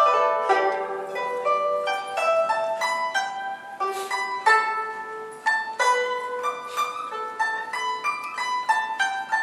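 Guzheng playing a slow traditional Chinese melody of plucked, ringing notes, opening with a quick downward run across the strings.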